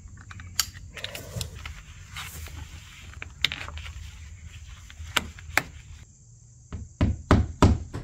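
Straight-cut snips clipping vinyl J-channel, a few separate sharp clicks. Near the end, a run of hammer blows, about three a second, nailing the J-channel to the wall.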